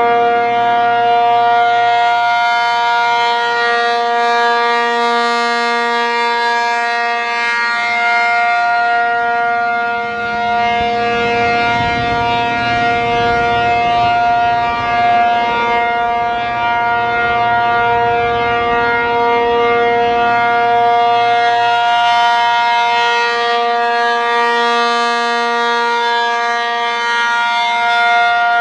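ASC RM-135/T-135 outdoor warning siren sounding its Full Alert signal: a loud, steady tone held at one pitch, made of several tones at once, slowly swelling and fading as the rotating horn turns.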